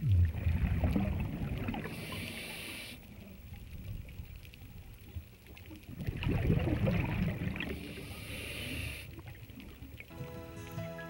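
Scuba diver breathing through a regulator underwater: exhaled bubbles rumble and gurgle twice, each time followed by about a second of hiss as the diver breathes in.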